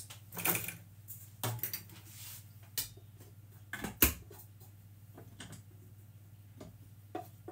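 Kitchen clatter: a series of separate knocks and clicks as metal kitchenware and a stand mixer are handled, the sharpest knock about four seconds in.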